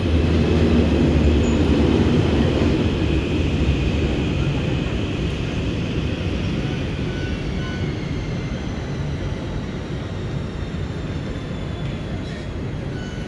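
Metro train at the platform: a low rumble, loudest about one to three seconds in and slowly fading, with a high electric whine that falls in pitch in the second half.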